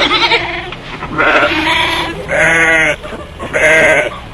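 Bighorn sheep bleating: about four wavering calls in a row, each under a second long.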